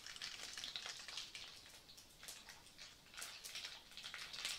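Seeds crackling and sizzling in hot oil in a steel kadai, a faint, irregular patter of fine pops as the tempering fries.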